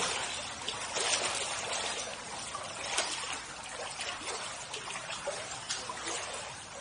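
Feet wading through ankle-deep floodwater on a tiled floor, a run of irregular splashes over the steady rush of shallow water flowing.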